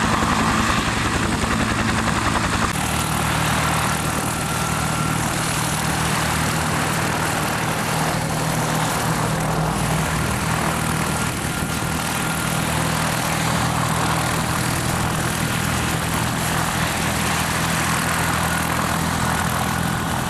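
Turbine helicopter, a military Bell UH-1 Huey, running on the ground with its rotors turning: a steady, unbroken drone of engine and rotor noise.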